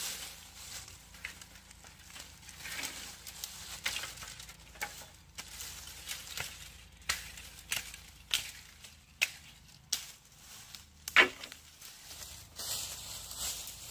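Irregular sharp knocks and dry rustling, about a dozen knocks in all, the loudest about eleven seconds in.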